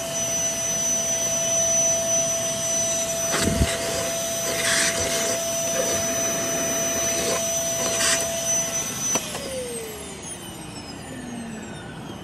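Vacuum cleaner motor running with a steady whine and airflow noise, with a few knocks from the parts being handled. About nine seconds in it is switched off, and the motor winds down with a falling pitch.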